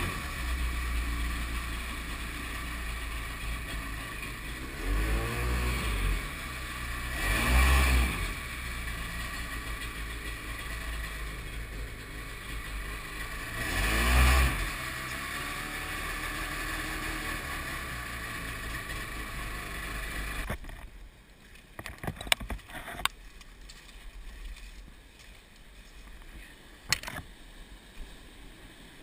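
Kawasaki 750 two-stroke jet ski engine driving a small jet boat, running steadily with its revs swelling and easing several times. About 20 seconds in it cuts to a much quieter rush of white water with a few sharp knocks.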